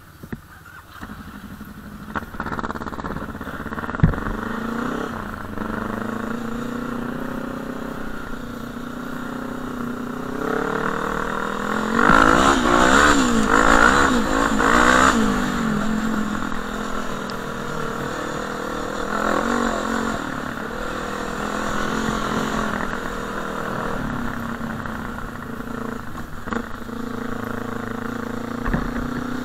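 Quad bike (ATV) engine pulling away and running along a sandy dirt track, its pitch rising and falling with the throttle. The loudest revving comes about twelve to fifteen seconds in. A single sharp knock is heard about four seconds in.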